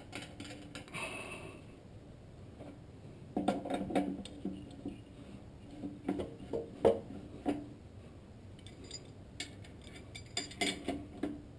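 Metal parts clinking and knocking as a lathe chuck and its spindle adapter are handled and fitted onto the headstock, in a few short clusters of clicks a few seconds apart.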